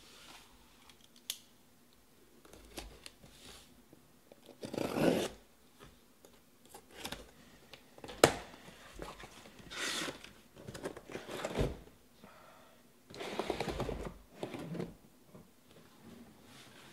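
A taped cardboard shipping case being opened: packing tape cut and torn, with cardboard flaps and boxes rustling and scraping in irregular bursts and a couple of sharp clicks.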